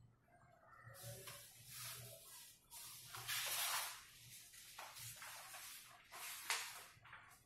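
Several bursts of scratchy rustling close to the microphone. The loudest comes about three to four seconds in and a short sharp one about six and a half seconds in.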